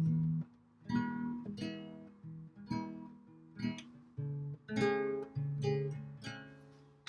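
Acoustic guitar playing an intro, strummed chords struck about once a second and left to ring out.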